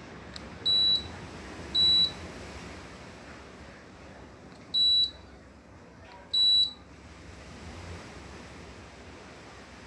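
Midea mini-split air conditioner indoor unit beeping four times, short high-pitched beeps unevenly spaced, each the unit acknowledging a command from its remote, over a steady hiss.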